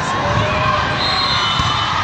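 Many young voices shouting and calling out over general crowd chatter, echoing in a large sports hall.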